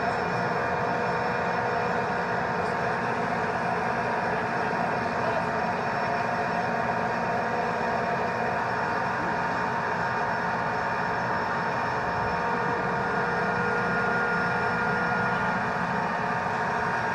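M1A1 Abrams tank's AGT1500 gas turbine engine running steadily: a constant high whine over a low rumble.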